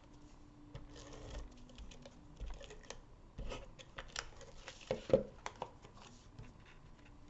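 Cardstock being handled on a tabletop: scattered rustles and light clicks and taps, with the firmest knock about five seconds in.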